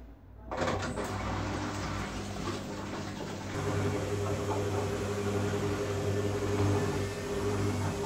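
Old Arçelik front-loading washing machine starting up about half a second in, its motor running with a steady hum as the drum turns the laundry; the hum grows stronger a few seconds later.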